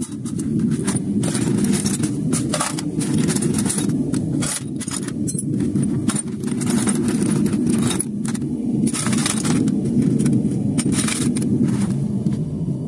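Scrap-aluminum melting furnace's burner running with a steady low roar, while metal clinks and scrapes sharply and often over it.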